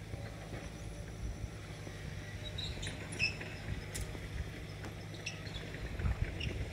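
Hitachi excavator's diesel engine running at a steady pitch, with a few short high chirps over it and some low knocks near the end.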